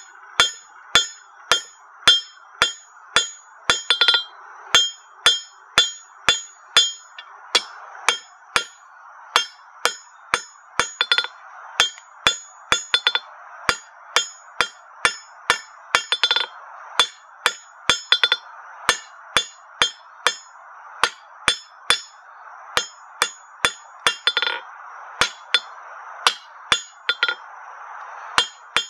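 Hand hammer striking a hot half-inch square steel bar on an anvil, steady blows about two a second, each with a brief metallic ring, as the bar's tapered tip is flattened.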